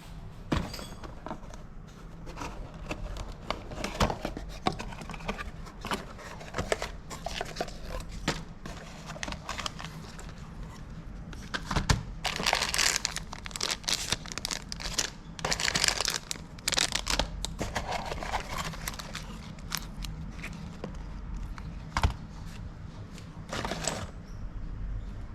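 Hand work on bike parts: scattered sharp clicks and knocks of metal parts and tools, with bursts of crinkling or rustling about halfway through.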